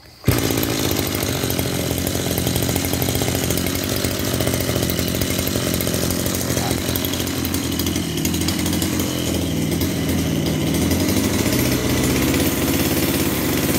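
Maruyama BIG M AC32SA brush cutter's 32cc two-stroke engine pull-started, catching on a single pull a moment in, then running steadily. Its pitch wavers briefly about two-thirds of the way through before settling.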